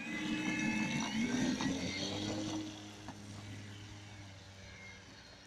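Radio-controlled model airplane's motor and propeller running at high power as it takes off, with a buzzing whine that shifts in pitch. The sound gets fainter after about two and a half seconds as the plane climbs away.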